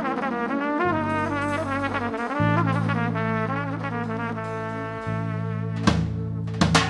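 Live Turkish Romani karşılama: trumpets with clarinet play a quick, ornamented melody over low held bass notes. About six seconds in, heavy drum strikes come in.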